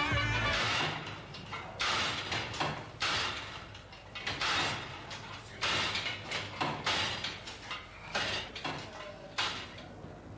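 Music stops about a second in. Then come several irregular, echoing bangs and knocks of changing-cubicle doors in a tiled swimming-baths changing room.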